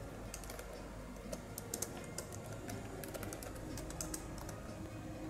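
Typing on a computer keyboard: an irregular run of key clicks that thins out after about four seconds, over a low steady hum.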